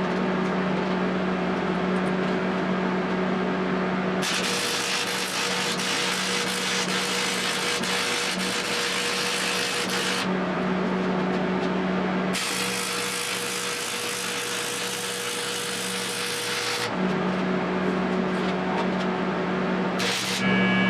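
Arc welder humming steadily, with two spells of welding arc hiss and crackle: one of about six seconds starting about four seconds in, and one of about four and a half seconds starting about twelve seconds in.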